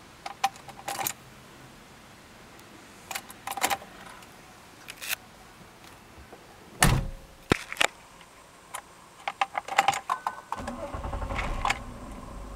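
Clicks and thunks of the ignition key and the car's electrics on a 1996 VW Passat VR6 that is failing to start, including a heavier thump about seven seconds in; the owner says the anti-theft module cycles the door locks after a couple of attempts. Near the end a low steady rumble starts.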